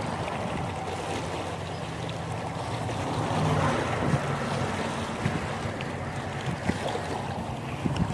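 Small waves lapping and splashing against shoreline rocks, with wind buffeting the microphone.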